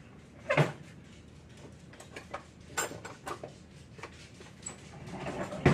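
Light kitchen handling noises: soft scattered taps and rustles, with a thump about half a second in and a sharp knock near the end.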